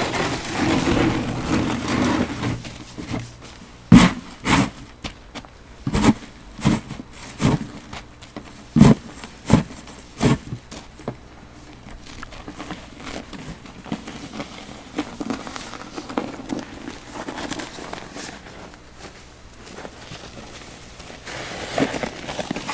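Snow being cleared with a plastic sled-type snow scoop, its crunching and scraping through packed snow. A run of about nine sharp knocks, spaced well under a second apart, comes early on the way through, with quieter uneven crunching after it.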